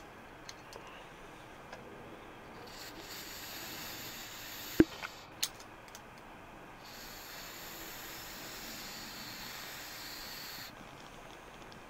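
Coleman butane canister hissing in two spurts, one of about two seconds and one of about four, as liquid butane is sprayed from its nozzle into a snowball. A sharp click sounds between the spurts.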